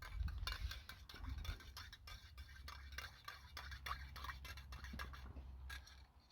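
A spoon stirring tea in a mug, with quick, irregular clinks and ticks, several a second, over a low rumble.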